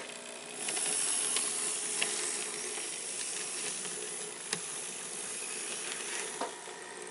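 N scale Bachmann 2-8-0 Consolidation model locomotive running along the track: a steady hiss from its small motor and wheels, with a few faint clicks.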